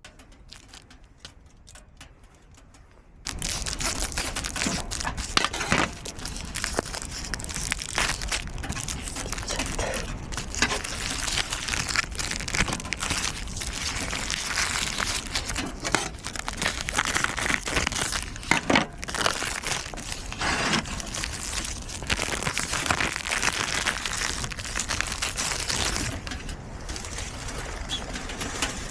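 Crinkling and rustling of food packaging being handled, dense with small clicks; it starts suddenly a few seconds in and eases near the end.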